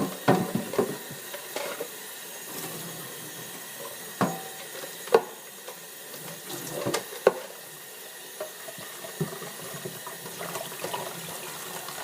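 Tap water running steadily into a sink as a cut-open plastic soda bottle is rinsed under it, with several sharp knocks as the bottle is handled.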